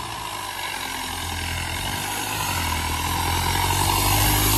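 Mahindra 575 tractor's turbocharged four-cylinder diesel engine pulling a tiller in high second gear, growing steadily louder as it approaches.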